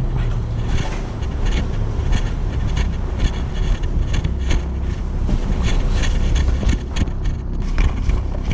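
Wind and handling rumble on a moving handheld camera's microphone, with quick footsteps on concrete stairs recurring two or three times a second.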